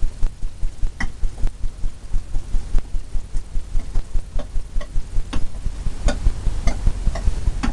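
Palette knife mixing oil paint on a palette: a fast, irregular run of knocks and scrapes, about three or four a second.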